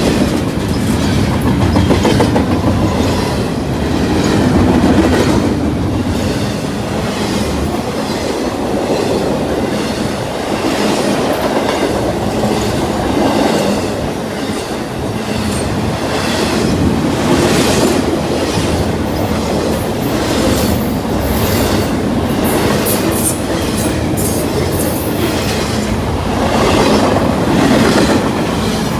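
CSX freight train rolling past at speed: a steady, loud rumble with the rhythmic clatter of car wheels over the rails.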